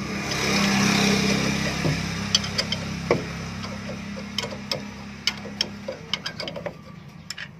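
Steel bolts clicking and clinking against each other and against the rusty steel brake drum as they are handled and threaded by hand into its puller holes. The clicks are short and irregular, from about two seconds in until near the end. Under them runs a steady low hum, with a rush of noise over the first couple of seconds.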